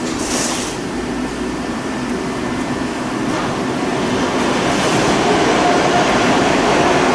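Steady rushing background noise that grows slightly louder, with a brief rustle near the start.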